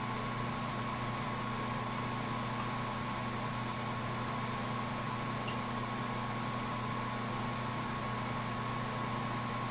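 Steady hiss of a lampworking bench torch flame with a steady electrical hum underneath, and two faint ticks.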